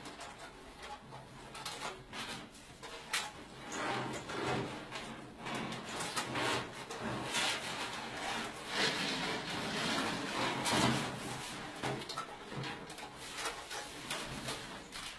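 Irregular scraping and creaking with scattered clicks and knocks, as of an object dragged and rubbed against a hard surface, echoing in a small room. The sounds come in uneven swells with no steady rhythm or pitch.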